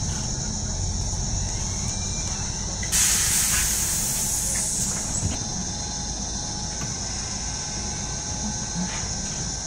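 Mercedes-Benz Citaro G articulated city bus heard from inside the cabin, its diesel drivetrain giving a steady low rumble as it slows and stops. About three seconds in, a sudden loud hiss of compressed air from the bus's pneumatic system fades away over about two seconds.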